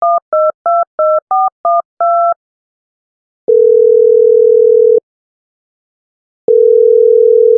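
Touch-tone telephone dialling: seven quick two-tone keypad beeps, followed by the ringing tone heard by the caller, a steady low tone of about a second and a half sounding twice with a pause between.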